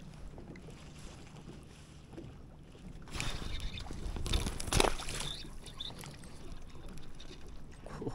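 Water splashing and sloshing, loudest from about three to five and a half seconds in, with one sharp splash near five seconds in.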